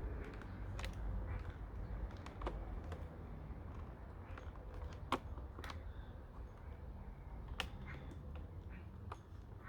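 Scattered light plastic clicks and taps as the parts of a Shark DuoClean vacuum's floor head and brush roller are handled and fitted back together, over a faint low hum.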